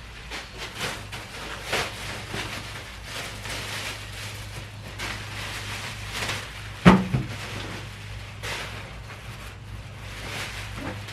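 Household handling noises: rustling and light clattering, with one sharp knock about seven seconds in, over a steady low hum.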